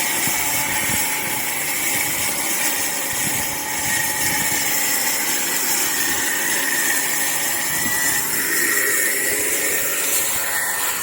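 A construction machine running steadily, a loud even whirring hiss with a faint high whine.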